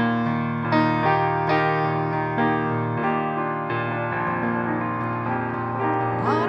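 Piano playing slow sustained chords of a hymn tune, with new chords struck about every second.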